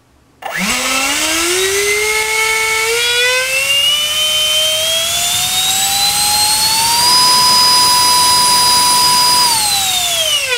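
64 mm electric ducted fan with a five-blade rotor, driven by a GoolRC 2948 4800 kV brushless inrunner on a 4-cell battery, spooling up from a standstill about half a second in: a loud whine that climbs steadily in pitch to full throttle. It holds there for a couple of seconds, then drops in pitch as the throttle is pulled back near the end.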